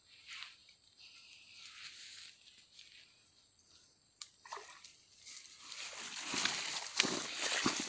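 Faint small splashes and handling sounds, then from about five seconds in louder rustling, crunching and splashing as a person in rubber boots moves through grass and dry leaves at the edge of a shallow creek, with a couple of sharp knocks near the end.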